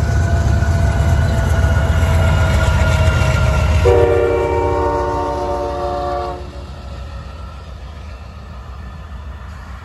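Amtrak diesel passenger train, a Genesis locomotive with bi-level Superliner cars, passing close by with a heavy low rumble. About four seconds in, the locomotive horn sounds one steady chord for about two and a half seconds, and the rumble then fades as the train draws away.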